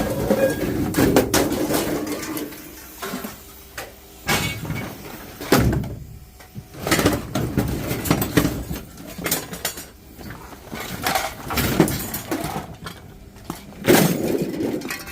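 Scrap metal parts clattering and clanking as they are handled and tossed, a string of irregular knocks and bangs.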